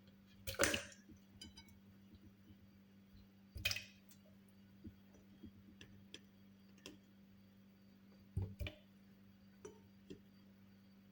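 Clicks and knocks from handling a blender jar and lid before blending: a louder knock about half a second in, another near 4 s and a double knock near 8.5 s, with fainter ticks between, over a steady low hum.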